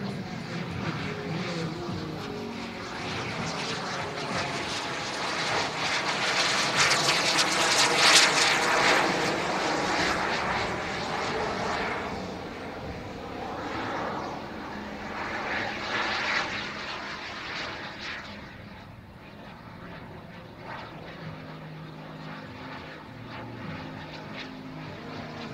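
Jet turbine engines of two large radio-controlled scale Red Arrows Hawk jets flying a display. The rushing jet noise swells to its loudest about eight seconds in as they pass, swells again around sixteen seconds, then drops away to a fainter distant sound.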